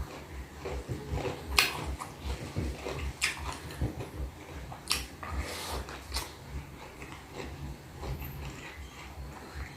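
Close-miked chewing of food, with a steady rhythmic jaw motion and a few sharp wet mouth clicks spread through.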